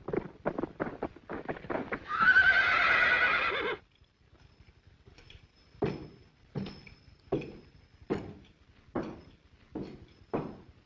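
Cartoon horse sound effects: quick galloping hoofbeats, a loud quavering whinny lasting under two seconds about two seconds in, then slow, evenly spaced clip-clop hoofbeats, roughly one every three-quarters of a second.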